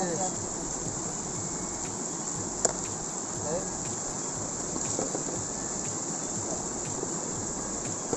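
Mountain stream rushing over rocks, a steady hiss, with a single sharp knock about two and a half seconds in.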